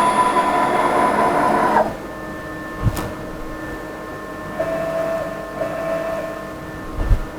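6040 CNC router's spindle and stepper motors running steadily while carving Huon pine, with several whining tones, then cutting off suddenly about two seconds in. After that a quieter hum remains, with two short whines a little before the end and a few knocks.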